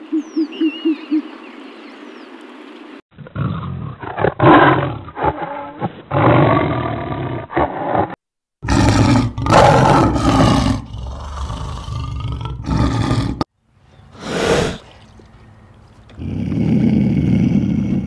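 A string of animal calls: a snowy owl's rapid low hoots at the start, then from about three seconds in a lion growling and roaring in several long bouts. Near the end a lynx calls.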